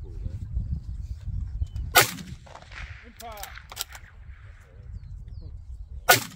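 Accuracy International AT .308 bolt-action rifle fired twice, about four seconds apart, each shot a sharp crack with a short echoing tail. A few fainter sharp clicks fall between the shots.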